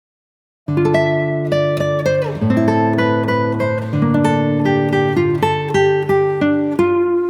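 Background music led by plucked guitar, starting abruptly after a moment of silence just under a second in.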